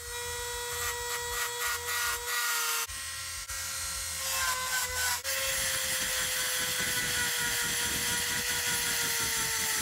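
High-speed rotary tool with a carbide burr grinding out the turbine flange opening of a cast turbo manifold, porting it to match the turbo. Its motor gives a steady high whine over a grinding hiss, cutting off and resuming abruptly about 3 and 5 seconds in, and sagging slightly in pitch near the end as the burr bears on the metal.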